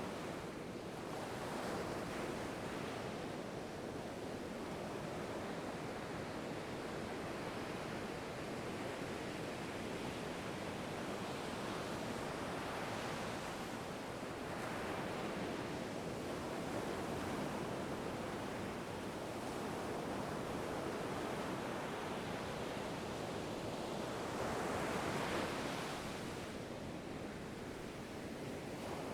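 Ocean waves breaking and washing on a shore, a continuous surf hiss that swells and ebbs every few seconds, with one larger wave about 25 seconds in.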